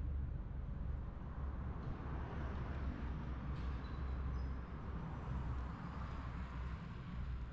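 Steady street noise from a bicycle riding along a city bike lane: a low rumble with cars passing. At the start a Berlin U-Bahn train is running along the elevated steel viaduct overhead.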